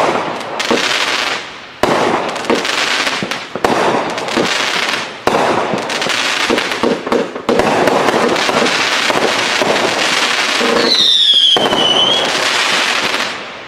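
A 500 g consumer firework cake firing shot after shot in quick succession, each launch followed by a burst in the air. About 11 s in, a whistle slides down in pitch for about a second. The barrage dies away at the end.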